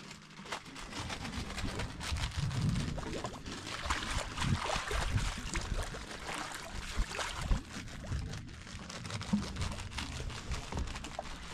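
Water lapping and gurgling against the side of a drifting boat, with scattered small clicks and knocks.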